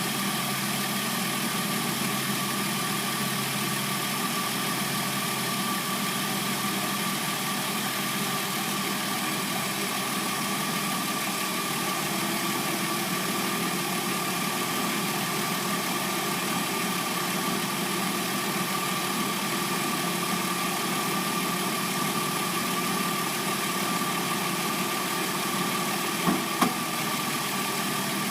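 Hyundai Sonata replacement engine idling steadily while it warms up. There are two brief sharp clicks a couple of seconds before the end.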